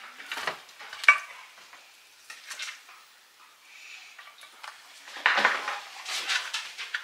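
Cutlery and utensils clinking and scraping against dishes and a baking pan, with faint sizzling from the glazed ribs fresh out of a hot oven. A sharp clink comes about a second in, and a busier stretch of clatter follows about five seconds in.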